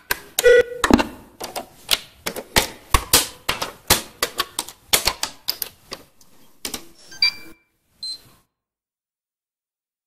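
A quick, uneven run of sharp mechanical clicks, several a second, from small levers and switches being flicked on a control panel. The clicks stop about seven and a half seconds in.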